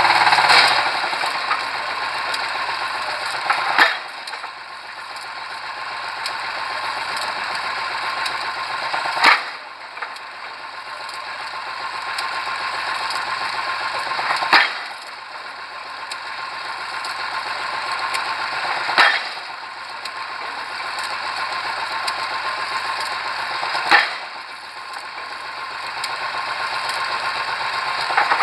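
Pile driver working: a steady mechanical rattle that builds slightly, then a sharp strike of the hammer on the pile roughly every five seconds.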